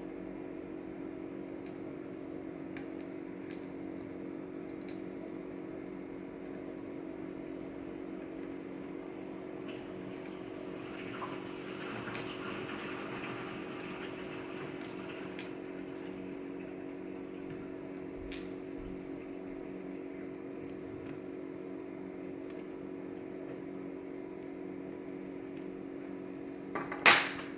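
Steady electrical hum with a few faint metallic clicks and ticks of small lock parts being handled, a short rustle about halfway through, and a sharper click near the end.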